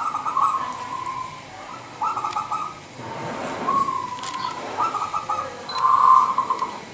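Zebra dove (perkutut) singing its cooing song: a run of trilled, purring coo phrases, one after another, loudest near the end.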